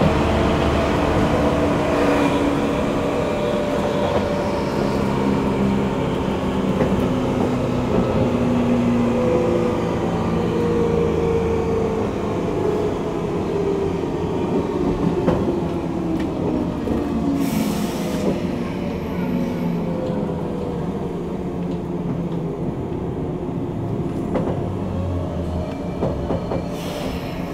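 MT54 traction motors of a 185 series electric train heard from inside the motor car, their whine falling steadily in pitch as the train slows, over wheel-on-rail running noise with occasional rail-joint clicks. Two short hisses, about 17 seconds in and near the end.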